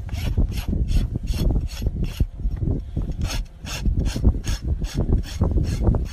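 Hoof rasp scraping across a lifted hoof in steady, regular strokes, about two to three a second, over a low rumble.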